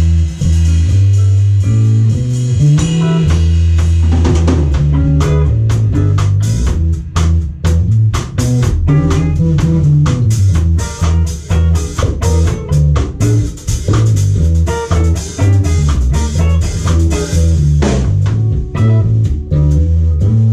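A live band jamming on electric bass, drum kit and electric guitar. A heavy bass line moves between notes under the guitar, and the drumming gets busier about a third of the way in.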